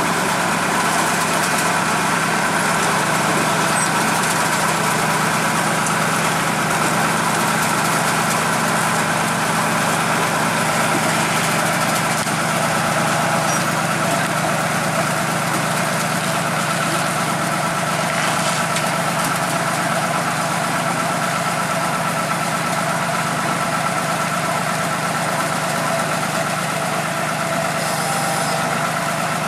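New Holland 8060 combine harvester's diesel engine running steadily as the machine crawls up onto a low-loader trailer on its tracks.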